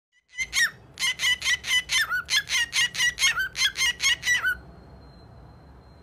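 Cockatiel giving a fast run of sharp chirping calls, about four or five a second, some ending in a falling slur. The calls stop abruptly about four and a half seconds in.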